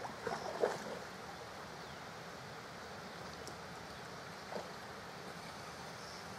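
Steady soft outdoor rushing of flowing water and wind, with a few brief soft knocks in the first second and one more about four and a half seconds in.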